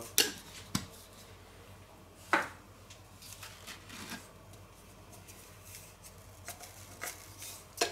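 Small clicks and rustles of spice jars being handled, twisted open and shaken over a plastic tub, with one sharper knock about two and a half seconds in.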